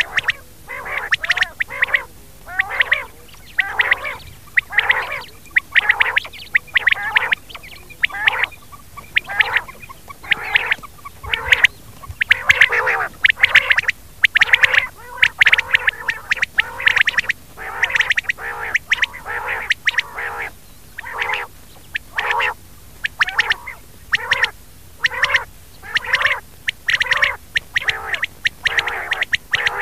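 Rain quail calling: short, sharp notes repeated about twice a second without a break.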